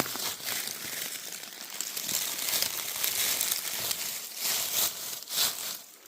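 Dry forest leaf litter crunching and rustling, a continuous crackle with louder crunches about two, four and a half and five and a half seconds in.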